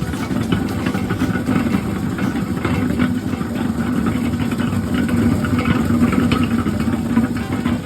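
Sweet potato peeling machine running: a steady motor hum with a continuous clatter of small knocks.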